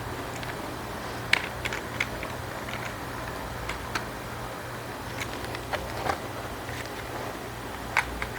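Light plastic clicks and taps, about eight scattered through, from toy RC plane parts and packaging being handled, over a steady low hum.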